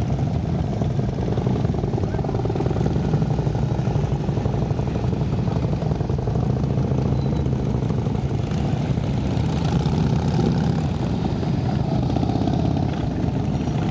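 A column of Harley-Davidson V-twin touring motorcycles rolling slowly past one after another, their engines making a steady, deep rumble.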